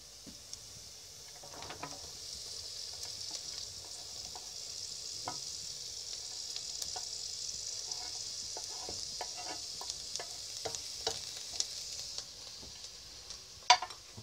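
Onions and carrot strips sizzling in hot oil in a stainless steel pot, the sizzle swelling about a second and a half in as the carrots go in. Scattered clicks and knocks of a wooden spatula stirring in the pot, with a sharp knock near the end as the loudest sound.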